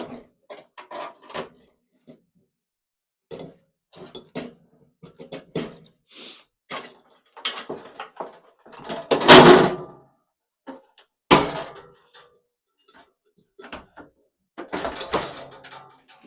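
Parts of a microwave oven being handled and pulled apart by hand: an irregular string of knocks and clatters, the loudest a rattling clatter about nine seconds in and a sharp knock just after eleven seconds.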